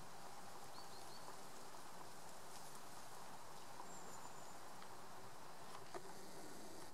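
Faint outdoor ambience: a steady hiss with a few short, faint high chirps and one soft click about six seconds in.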